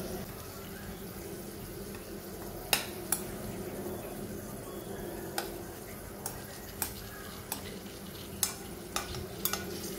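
A metal spoon scraping and clicking against a steel frying pan as sweet potato slices shallow-frying in ghee are pushed around, about ten sharp taps spread through, the loudest about three seconds in. Under it runs a low, steady frying sound.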